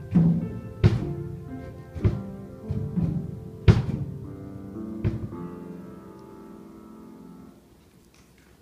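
A drum kit struck five times at uneven intervals over held grand piano notes and chords, which ring on and die away near the end.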